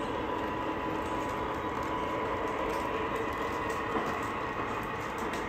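O scale model freight train rolling along the layout's track: a steady rumble of metal wheels on rail with a steady motor hum.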